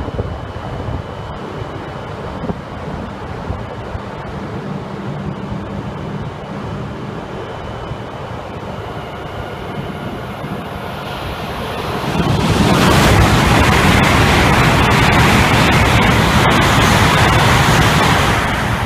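An E6-series Shinkansen passing through the station at speed without stopping. The sound builds up about halfway through into a loud, steady rushing roar of wheels and air that lasts about six seconds, then begins to ease near the end. Before the train arrives there is a steady background hum.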